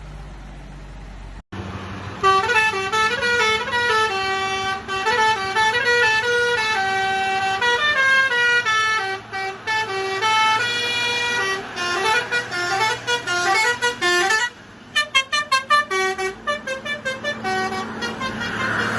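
Bus 'telolet' horn, a set of multi-tone air horns, playing a stepping tune of held notes. Near the end it changes to a fast run of short toots.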